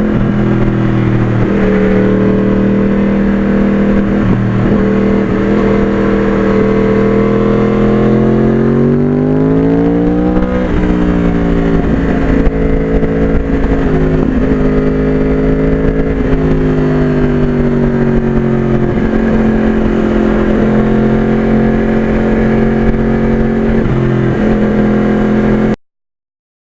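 Motorcycle engine running at a steady cruise. Its pitch climbs from about eight seconds in, drops sharply a couple of seconds later, then settles and eases down again near the middle.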